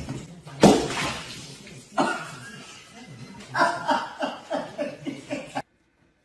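A loud crash as something falls and scatters across the floor. A few seconds later a person laughs in rapid rhythmic bursts.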